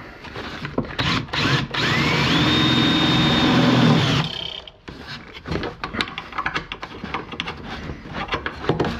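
Cordless drill driving a self-tapping sheet-metal screw into a metal drawer runner: the motor spins up with a rising whine, runs steadily for about two seconds and stops. Scattered clicks and knocks of handling come before and after.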